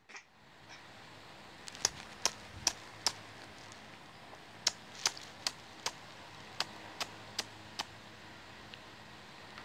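Sharp, irregular clicks and taps close to the microphone, about fifteen in all with a short pause near the middle. Under them runs a steady low hum and hiss from a room air conditioner.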